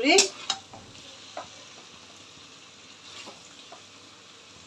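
Faint sizzling from a steel kadai on the stove, with a few light clicks of a metal spatula against the pan, most of them in the first second and a half.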